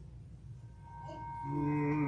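A man humming a low held note, starting about one and a half seconds in, giving the starting pitch for a cappella hymn singing. A faint thin steady tone sounds just before it.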